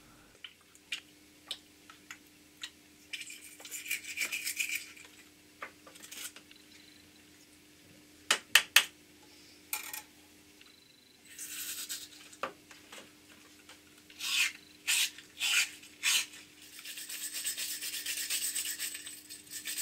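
Steel wire brush scrubbing the diesel-soaked bronze nut of a vise jaw clean: a few short scrubbing strokes, then steady brushing for the last few seconds. Before that, scattered small clicks and knocks as the nut is handled in its tray.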